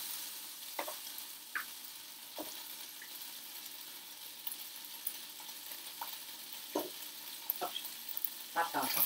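Chicken pieces sizzling steadily in a hot non-stick frying pan, with a few light clicks and taps as the pieces are lifted out with a fork.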